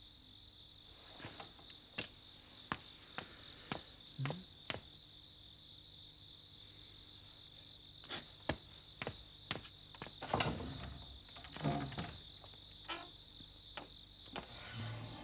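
Crickets chirping steadily, overlaid with irregular sharp wooden taps and knocks. Two longer, louder knocks with scraping come about ten and twelve seconds in.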